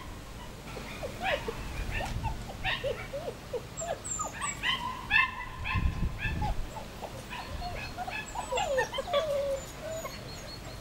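German Shepherd puppies whimpering and yipping: many short, high calls in quick runs, some gliding up or down in pitch.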